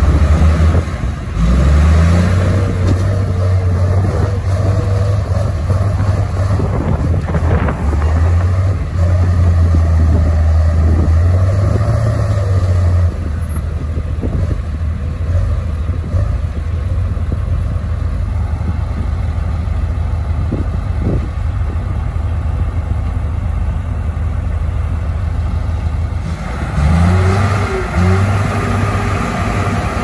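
Diesel engines of two crawler bulldozers, one a Komatsu D58E, labouring under load as they push soil. The low engine drone rises and falls with the load: it eases about halfway through and surges again near the end, with a few brief knocks from the machines.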